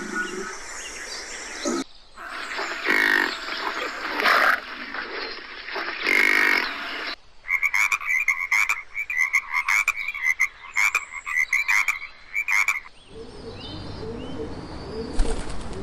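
Tree frog calling: a few loud croaks, then a fast run of short rattling calls, several a second, for about five seconds. From about two seconds before the end, pigeons are cooing.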